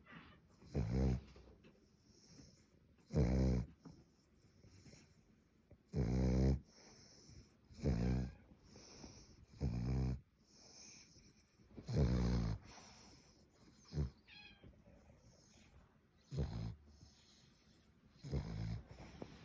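French bulldog snoring: about nine snores, one roughly every two seconds, each lasting about half a second. A brief high whistle sounds between snores about two-thirds of the way through.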